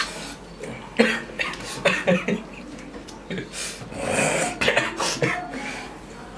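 A man coughing in several short fits and clearing his throat, his throat burning from an extremely hot chili chip.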